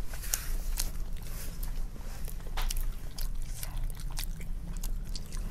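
Close mouth sounds of people eating steamed momos: chewing and biting with irregular wet clicks and smacks, over a steady low hum.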